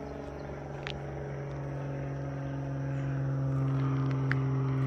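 A steady low machine hum with evenly spaced overtones, growing gradually louder.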